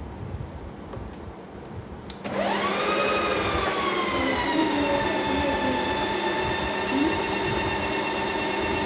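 Ninja Creami ice cream maker starting its mix-in cycle about two seconds in: the motor whine comes in suddenly, rises briefly in pitch and settles into a steady high whine as the paddle churns candy pieces into the frozen pint.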